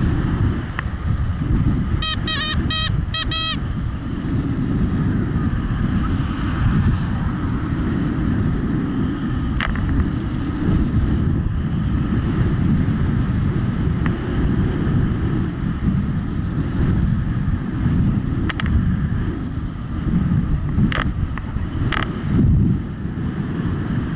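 Wind buffeting the microphone of a moving electric scooter, with a steady low rumble of wind and road noise. About two seconds in there is a short, rapid run of high chirps, and a few faint clicks come later.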